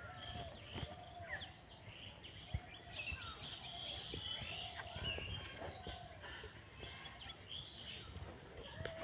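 Several birds chirping and calling over a low outdoor background, with short rising and falling chirps and repeated lower arched calls, and a thin steady high-pitched tone throughout. A single sharp tap sounds about two and a half seconds in.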